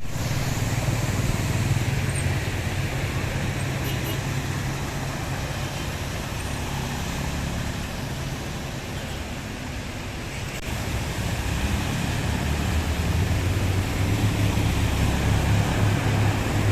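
Road traffic: vehicle engines running and passing over a steady noisy wash, growing louder in the last few seconds.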